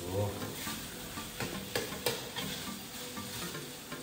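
Squid and petai beans sizzling in a metal wok while a metal spatula stirs and scrapes them around, with a few sharp clinks of the spatula on the wok about a second and a half in.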